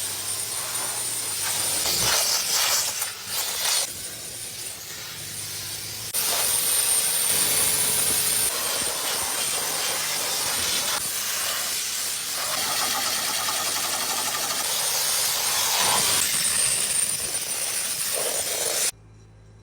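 Steady hissing jet of a cleaning spray blasting a combine harvester, with an engine running underneath; the hiss cuts off suddenly near the end.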